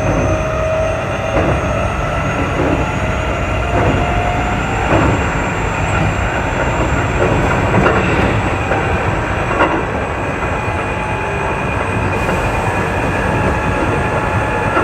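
Keio 8000 series electric train running, heard from on board: a steady rumble of wheels on rail with a few scattered rail-joint clicks, and a faint motor whine slowly rising in pitch.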